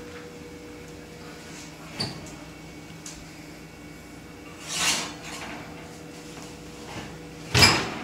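Oven being opened and the lasagna lifted out: a click as the oven door opens, a brief scrape of the metal rack and glass baking dish as it is pulled out, and the oven door shut with a sharp knock near the end. A steady low hum runs underneath.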